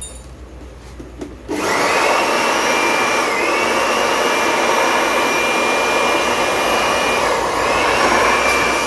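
Freshly rebuilt K27 turbocharger spun up by a blast of compressed air for a test run: a loud rush of air starting suddenly about a second and a half in, with a steady high whistle that dips briefly twice.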